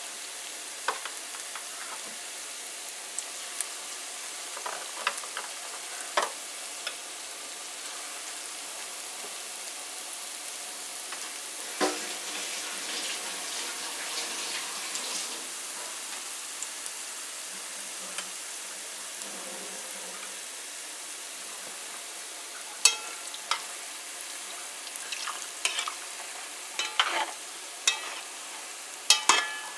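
Vegetable pakoras deep-frying in hot oil, a steady sizzle. Now and then a sharp click of a metal spoon against the pan, several in a row near the end as the fritters are turned.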